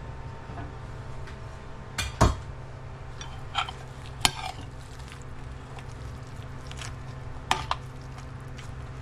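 Metal spoon stirring chickpeas and soaked bread in broth in a large ceramic plate, with a handful of sharp clinks and scrapes against the plate over a steady low hum.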